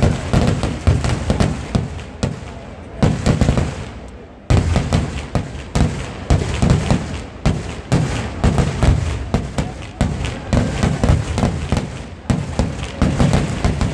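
Vedikettu fireworks display: a rapid, unbroken barrage of exploding firecrackers and shells, many bangs a second. It thins out briefly about four seconds in, then bursts back in suddenly.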